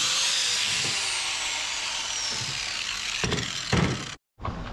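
Compact electric angle grinder working on welded steel brackets, its motor winding down with a falling whine once released. Two knocks follow a little after three seconds as it is set down on the table.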